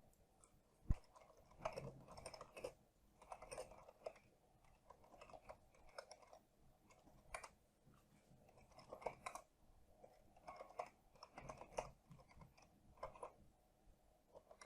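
Faint computer keyboard typing: irregular clusters of keystrokes, with a single sharper click about a second in.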